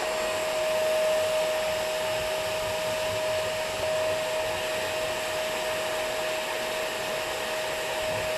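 Dyson DC24 ball vacuum cleaner running steadily: an even rush of air with a constant whine.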